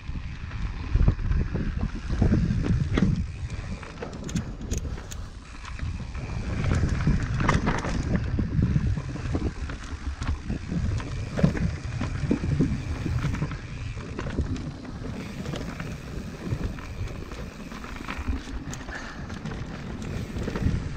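Mountain bike riding down a dirt singletrack: tyre rumble over the rough trail and wind buffeting the microphone, with scattered clicks and rattles from the bike over bumps.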